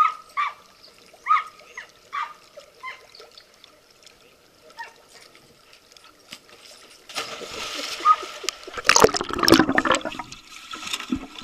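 An American pit bull terrier whines in a string of short, high yelps. About seven seconds in, the water starts rushing and then churns loudly and bubbles, heard with the microphone underwater as the dog plunges into the pool.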